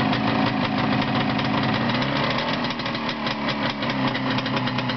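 Rebuilt Jawa single-cylinder two-stroke motorcycle engine running steadily on a test stand, with first gear engaged.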